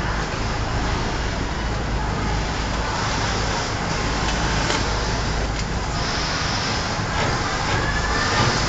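Siruba industrial sewing machine running as fabric is fed through it, over a steady machine hum with a few light clicks.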